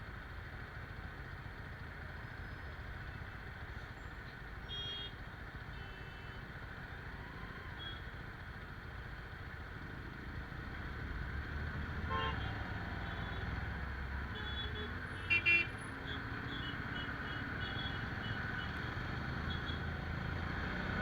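Motorcycle engine and street traffic rumbling steadily, growing louder about halfway through, with short vehicle horn toots; the loudest is a quick double toot about two-thirds of the way in.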